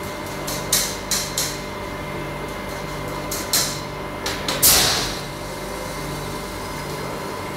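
Steady machinery hum, broken by several sharp knocks and clatters, the loudest about four and a half seconds in with a brief hissing tail.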